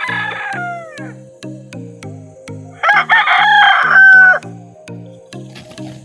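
A gamecock crowing twice, one crow trailing off at the start and a louder, longer one about three seconds in, over background music with a steady beat.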